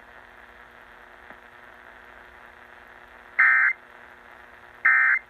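Emergency Alert System end-of-message code sent over AM radio: after a few seconds of steady radio hiss, two short, loud bursts of digital data tone about a second and a half apart, the sign that the alert has ended.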